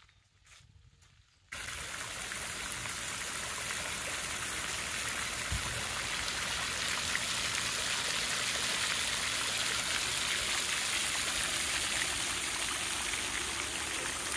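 Pond fountain spraying, its water falling back and splashing steadily onto the pond surface. The sound starts suddenly about a second and a half in.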